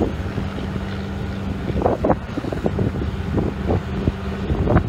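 Fishing boat's engine running steadily with a constant low hum while the boat is worked off the shallows, with wind on the microphone. A few short, louder bursts come about two seconds in and near the end.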